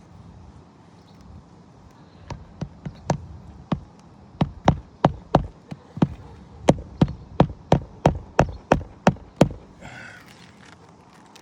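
Hammer driving roofing nails through asphalt shingles: a run of about twenty sharp strikes, two to three a second, starting about two seconds in and stopping near the end.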